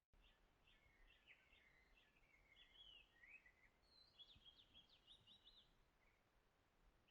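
Faint bird song: a run of short chirping and twittering notes, ending in a quicker series of repeated notes around four to five seconds in, over a low background hiss.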